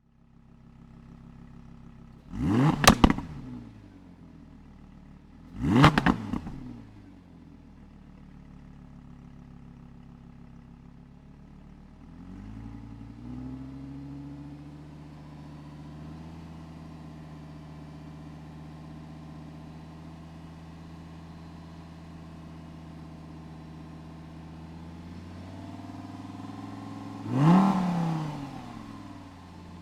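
Stationary Audi R8's engine idling, with three quick throttle blips that rev sharply up and fall straight back: two close together near the start and one near the end. About a third of the way in, the idle pitch climbs slightly and then holds steady.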